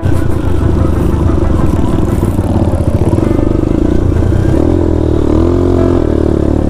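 Motorcycle engine running steadily under load while being ridden, with some clatter; its note dips and then climbs again about two-thirds of the way through.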